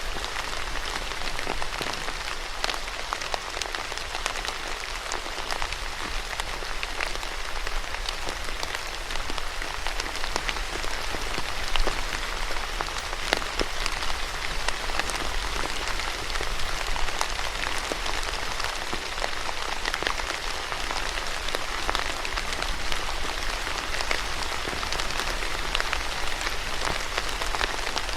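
Steady rain falling on a surface, a dense even hiss with many individual drop ticks throughout.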